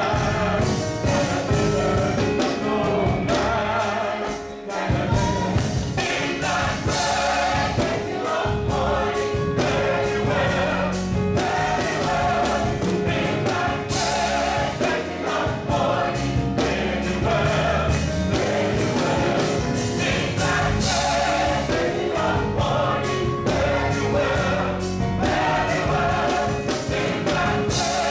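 Gospel choir singing with band accompaniment, over a steady beat and strong bass.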